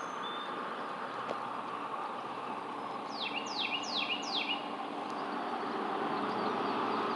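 A bird calling a run of four quick, clear down-slurred whistles about three seconds in, over a steady outdoor background hiss that slowly grows louder.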